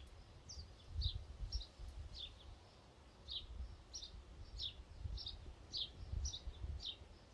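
A bird calling steadily with short, high, downward-sliding chirps, about two a second, over a low rumble of wind that swells and fades.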